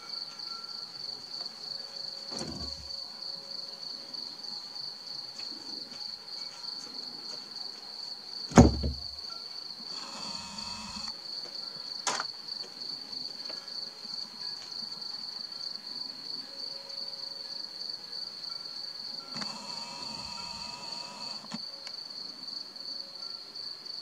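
Crickets chirring in a steady, high, finely pulsing trill. A sharp knock about eight and a half seconds in is the loudest sound, with fainter clicks before and after it and two short stretches of hiss.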